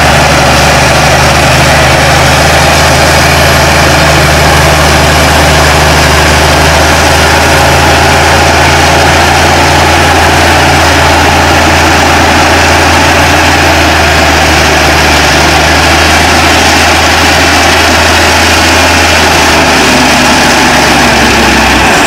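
Heavy construction machine's diesel engine running steadily with a deep, even drone and a constant broad rush of noise, with a slight shift in the low drone about twenty seconds in.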